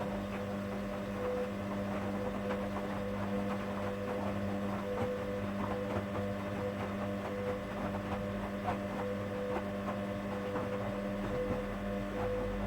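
1959 Hoover Daily washing machine running: a steady electric motor hum with a wavering higher tone and faint ticks.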